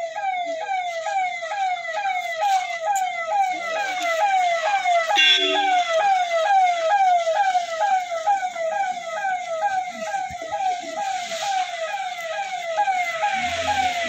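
Ambulance's electronic siren sounding in a fast repeating sweep, about three cycles a second, as it arrives on scene.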